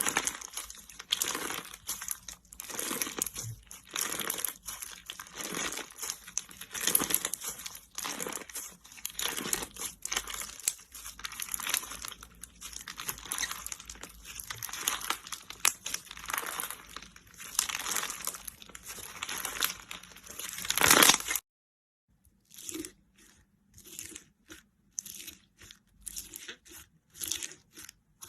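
Slime being squeezed and pressed by hand, giving a dense run of crackles and pops; it cuts off abruptly about 21 seconds in, then sparser, quieter pops follow.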